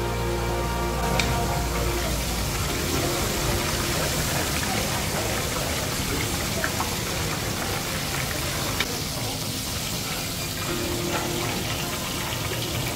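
Battered skewers deep-frying in hot oil, a steady sizzle, with a few light clicks of metal tongs.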